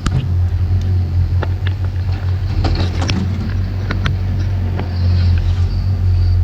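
Diesel engine of heavy earthmoving equipment (a mini excavator and skid steer at work in mud) running steadily under load. Sharp clanks and knocks come at irregular moments over the drone.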